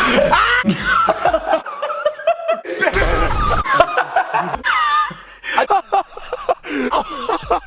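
Young men wheeze-laughing: high, squealing, breathless laughter in quick broken bursts, with a short hissing burst about three seconds in.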